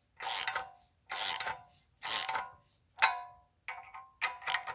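Ratchet wrench clicking in short bursts about once a second as it turns down a multi-valve spring compressor, with a light metallic ring in each burst; the valve springs are being compressed to free the valve keepers.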